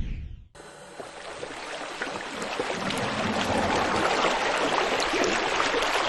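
Running water, a steady trickling and splashing flow. It fades in about half a second in and grows louder over the next couple of seconds, then holds steady.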